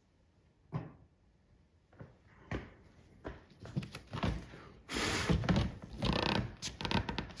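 Handling noise: a couple of single knocks, then a busy run of louder rustling and clattering in the second half as things are moved and set down.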